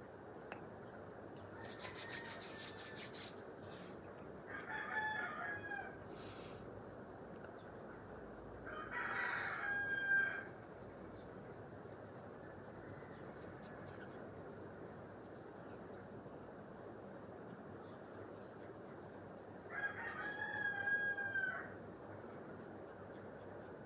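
A rooster crowing three times, each crow about a second and a half long, over a steady background hiss.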